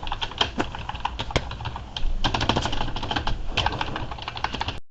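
Membrane keyboard being typed on, many soft key presses in an irregular patter that gets faster about two seconds in, then stops just before the end.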